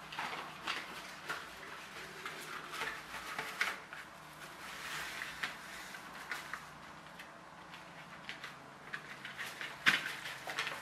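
Thin clear plastic film crinkling and rustling as it is lifted and handled over a flat board, in irregular crackles with a sharper, louder crackle near the end.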